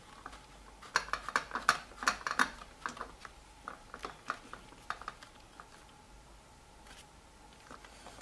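Scattered light clicks and taps of a bicycle seatpost and saddle clamp being handled and fitted into the frame, most of them in the first three seconds, then only a few.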